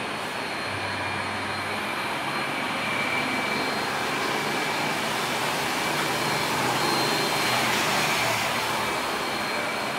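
Jet airliner engines running: a steady rushing noise with a high whine that swells gradually and eases slightly near the end.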